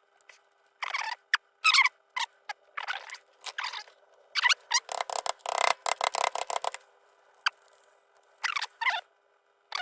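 Tools tapping and scraping on an Embury Air Pilot lantern's metal rim to pop a part into place: irregular sharp taps and short scrapes, with a quick run of taps around the middle.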